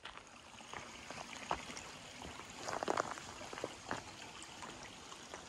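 A small brook trickling under a wooden footbridge, with scattered footsteps on the trail, a louder cluster of steps about three seconds in.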